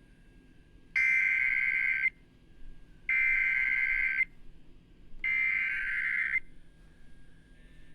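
Emergency Alert System SAME header: three identical bursts of buzzing digital data tones, each about a second long with about a second between them, which open an emergency alert, here a severe thunderstorm warning.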